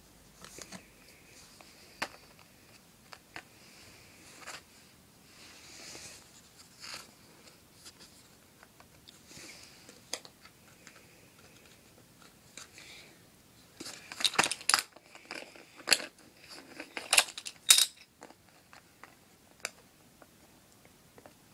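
Modelling clay and a plastic mould being handled: scattered soft taps and rustles, then a run of sharper plastic clicks and taps about two-thirds of the way in.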